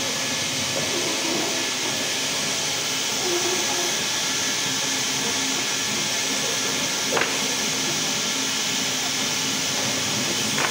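Twin-head horizontal band resaw running with a steady hiss and a faint even hum, with two sharp clicks, one about seven seconds in and one near the end.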